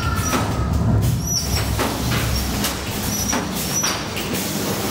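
Steady low mechanical rumble with irregular knocks and brief high squeaks, as of a dark-ride car rolling along its track.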